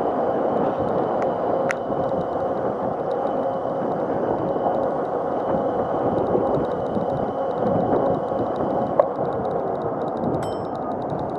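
Razor MX500 electric mini dirt bike riding at a steady speed: the electric motor and chain drive whir with a steady whine over the rush of wind and tyre noise. Near the end there are a couple of faint, high, bell-like dings.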